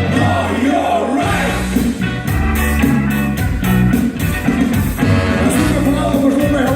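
Rock band playing loudly with drums, bass and guitar, a singing voice over it.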